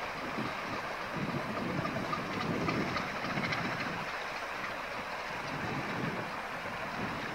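Narrow-gauge steam train passing, double-headed by Quarry Hunslet tank locomotives: a steady working sound of the engines and the coaches running on the rails.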